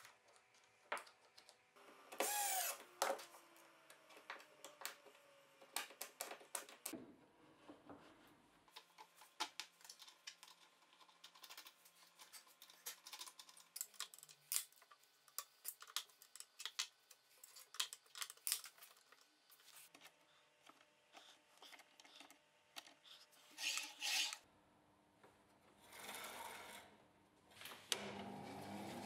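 Small clicks and taps of metal parts, screws and a hex key being handled while guide blocks are fitted to a homemade band saw, with a short cordless drill whir about two seconds in. In the last second the band saw's motor starts and rises in speed.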